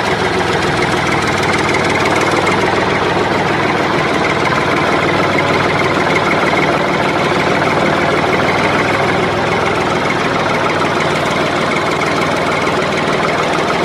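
A motor running steadily and without a break, a low rumble under a dense buzz.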